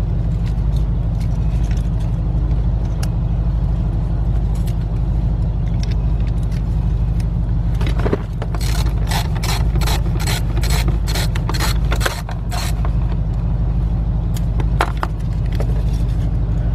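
A steady low rumble runs throughout. From about eight to twelve and a half seconds in comes a run of about a dozen sharp metallic clicks, roughly three a second, from hand tools unbolting a bracket inside a car door.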